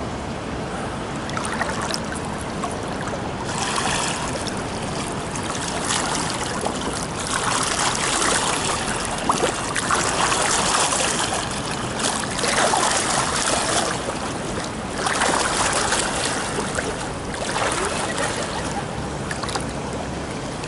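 Pool water splashing and churning as a swimmer does breaststroke close by, swelling every two to three seconds with each kick-and-glide stroke cycle.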